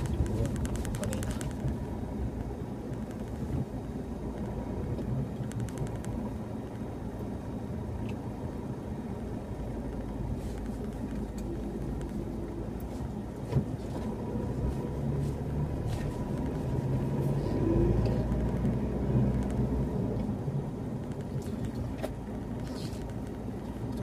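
Car driving on a paved road, heard from inside the cabin: a steady low rumble of engine and tyre noise, with a few brief faint clicks.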